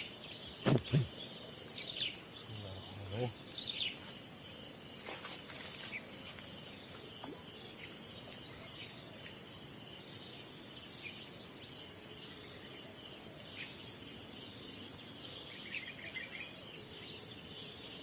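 Steady high-pitched drone of insects such as crickets or cicadas, with two sharp knocks about a second in and scattered short chirps.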